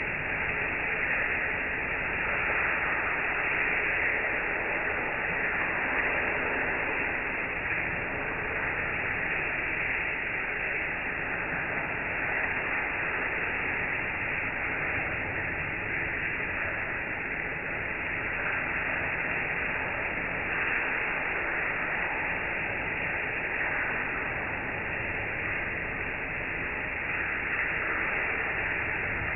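Shower spray hissing steadily onto a cat and the tiled wall and floor of a shower stall.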